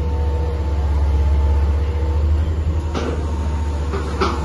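Tracked excavator's diesel engine running steadily with a constant whine, with two sharp knocks of demolition work near the end.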